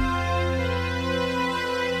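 Soft, slow instrumental music with long held chords.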